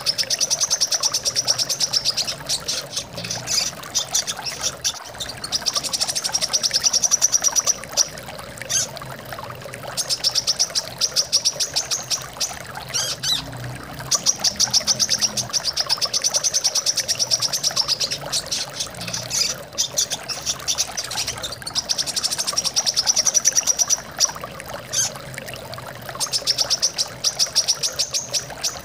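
Brown-throated sunbird (kolibri kelapa) singing in repeated bursts of very rapid, high chattering notes, each burst a couple of seconds long, over the steady sound of flowing water.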